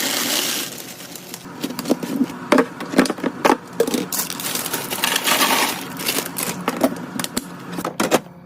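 Food packaging and plastic containers being handled and set down while restocking a fridge: a run of small clicks, taps and knocks, with bursts of rustling near the start and about five seconds in.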